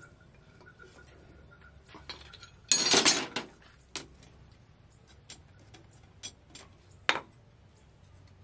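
Hand hammer striking red-hot steel from an old chainsaw on a steel post anvil: a loud clatter of quick blows about three seconds in, then single metallic clinks roughly a second apart.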